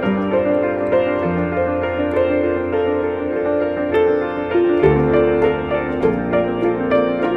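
Background music: an uplifting instrumental track led by piano, with repeated notes over a bass line that changes every second or two.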